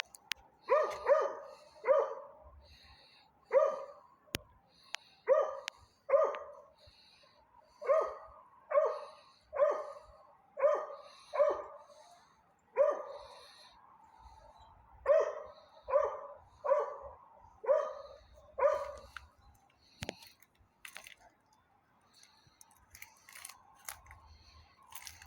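A dog barking repeatedly, about twenty sharp barks in quick clusters of two or three. The barking stops near the end, leaving only a few faint clicks.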